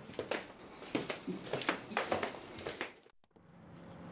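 A quick run of light clinks and knocks of dishes and tableware being handled as a table is cleared. They stop abruptly about three seconds in, and a car's engine and road noise then swells as it approaches.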